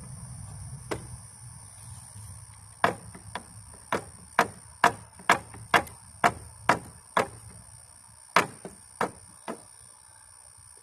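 Hammer blows on the wooden boards of a bench swing being taken apart: one strike, then after a pause a quick run of sharp knocks about two a second, thinning out and fading near the end.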